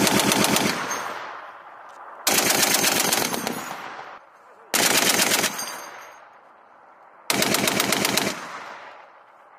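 Browning M2 .50-calibre heavy machine gun firing four short bursts about two and a half seconds apart, each a quick string of heavy shots. Each burst is followed by a long rolling echo that fades away.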